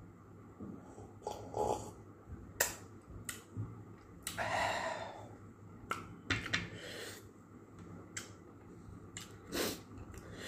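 A person eating with his mouth: scattered sharp lip-smacks and mouth clicks, with a loud breath through the nose about four seconds in and a shorter one near the end.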